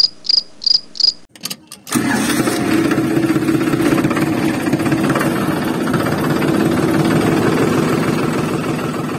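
Crickets chirping about three times a second until just over a second in, then a few clicks, and a motor starts up and runs steadily and loudly, easing off a little near the end.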